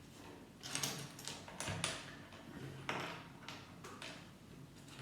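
Small plastic Lego minifigure parts clicking and rattling as they are picked out and set down: a series of short, irregular clicks and rustles.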